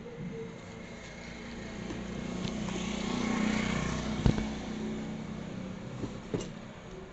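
A motor vehicle passing by, its sound swelling and then fading over a few seconds, with two sharp clicks, one about four seconds in and another near the end.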